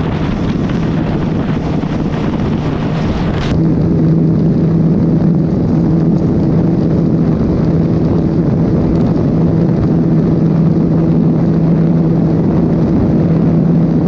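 Single-cylinder motorcycle engine held at high revs at a steady top speed, with wind rushing over the microphone. About three and a half seconds in the sound cuts to a steadier, slightly louder engine drone of constant pitch.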